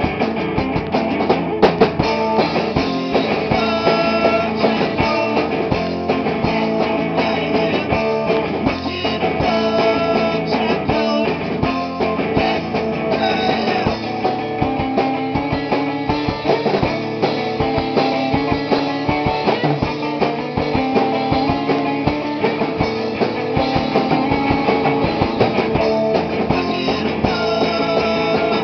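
A rock band playing live at rehearsal: electric guitar and a drum kit playing steadily through a song.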